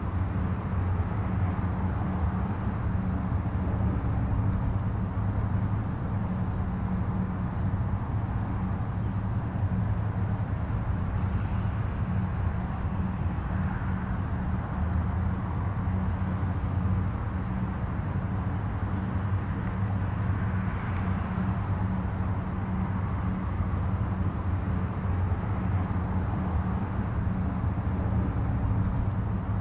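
Distant highway traffic: a steady low rumble of tyres and engines, with soft swells as individual vehicles pass, a couple of times.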